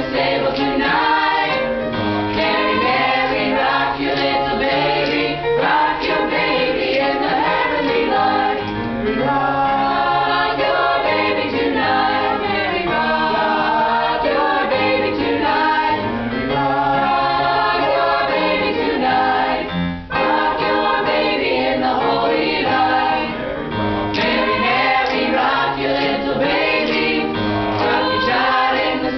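High school concert choir singing a Christmas carol in several-part harmony, with one brief break in the sound about two-thirds of the way through.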